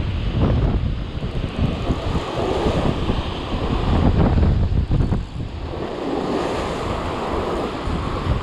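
Surf breaking and washing over shoreline rocks, with wind buffeting the microphone in a heavy low rumble.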